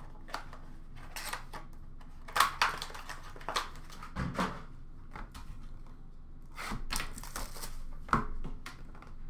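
Cardboard trading-card box and its packaging being handled: a string of irregular clicks, crinkles and short rustles.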